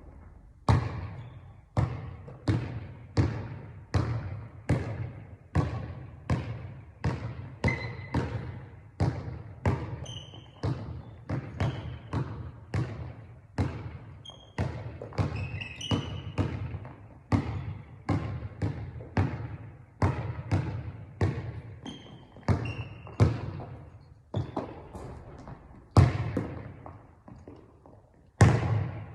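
A basketball being dribbled steadily, about one and a half bounces a second, each bounce a sharp thud with a short ringing tail. Two harder bounces come near the end.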